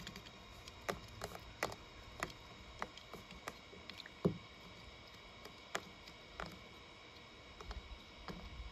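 Toy monster truck being pushed and turned in a plastic tub of thick paint: faint scattered clicks and soft knocks, with one louder knock about four seconds in.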